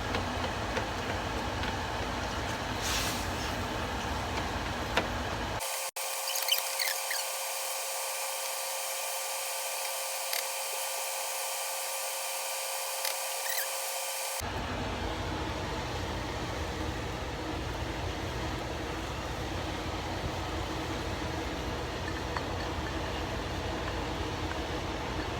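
Ground beef and onion frying in oil in a pan: a steady sizzle with a few scattered pops.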